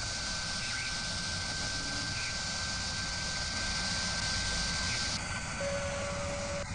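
Sound-designed whir of a spinning machine spindle: a steady hiss and low rumble with a thin high tone held over it. About five seconds in the hiss drops away and a lower steady tone comes in.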